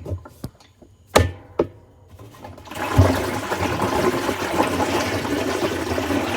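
Washer drum being turned by hand with loose coins inside: a few sharp clinks and knocks, then from about three seconds in a continuous rattling rush as the tub rotates. Coins trapped between the drum and tub are the cause of the washer's rattling noise.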